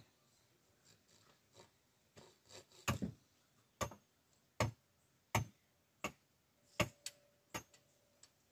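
A series of sharp knocks. A few light ones come first, then from about three seconds in, heavier blows with a dull thud, roughly one every three quarters of a second.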